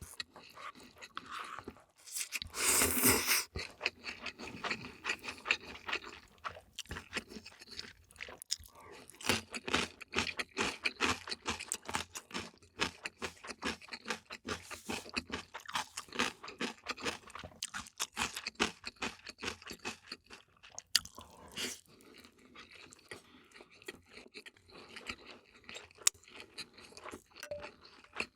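A person chewing food, with a dense run of crisp crunches and a louder burst about three seconds in.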